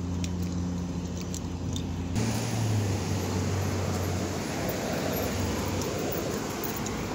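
Street traffic noise: a steady low engine hum, which changes abruptly about two seconds in to a broader rushing noise with a deeper hum, like a vehicle going by.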